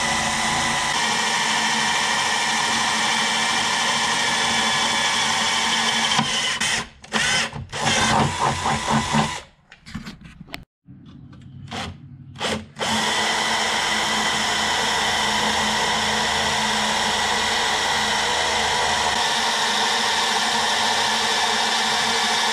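Quarter-inch drill with a 1/8-inch bit running steadily, drilling pilot holes into the spot welds of car-body sheet metal. Around the middle it stops and starts in short bursts with a brief quiet gap, then runs steadily again.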